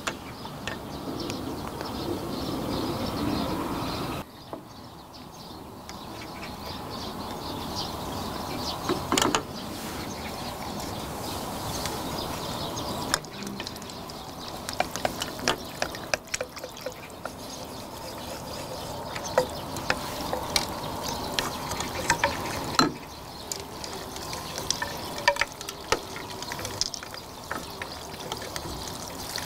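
Chopsticks and spoons stirring cold noodle soup in stainless steel bowls: the broth sloshes, and the utensils clink against the metal bowls again and again, more often in the second half.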